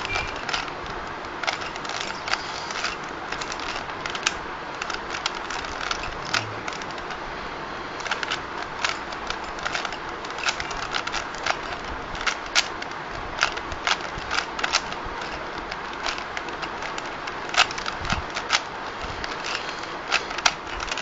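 Rubik's cube being solved by hand: its plastic layers turned in quick, irregular runs of clicks and clacks over a steady background hiss.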